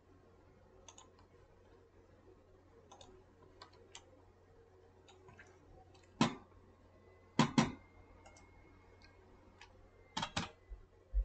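Scattered clicks of a computer mouse and keyboard, with a few louder clicks coming in quick pairs in the second half, over a faint steady hum.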